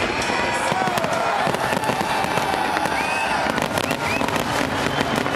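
Aerial fireworks display: a dense, continuous run of shell bursts, bangs and crackling, with a few short whistling glides.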